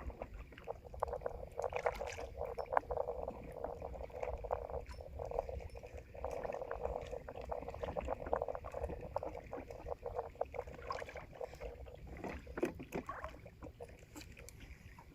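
Water splashing and lapping against the side of a small fishing boat, a dense crackling patter that swells and eases, over a low rumble.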